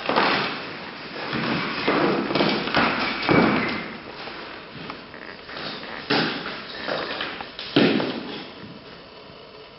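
A plastic bag rustling as it is emptied, with objects such as cans and containers thudding and tapping onto a hard floor several times.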